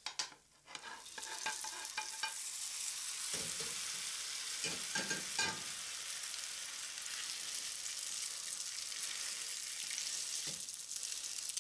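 Grated-potato flatbread frying in vegetable oil in a small non-stick pan: a steady sizzle that builds about a second in as the freshly flipped side meets the hot oil. A few light knocks come in the first half.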